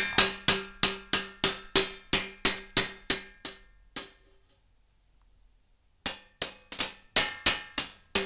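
An upturned metal loaf pan beaten with a drumstick by a baby: sharp metallic strikes at about three a second, each ringing briefly. The strikes stop for about two seconds midway, then start again.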